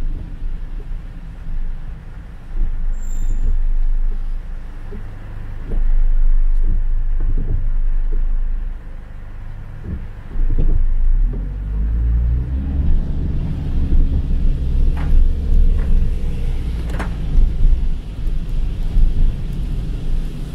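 Car interior in heavy rain: rain on the car with a low engine and road rumble and a few scattered knocks while the car waits at a light. About halfway through the car pulls away, and the rumble of tyres on the wet road grows stronger and steadier.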